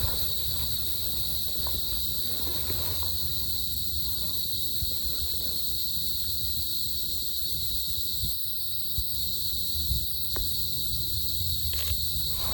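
Forest insects giving a steady, high-pitched drone, with a low rumble underneath and a few scattered clicks and knocks, one about ten seconds in and a brief cluster near the end.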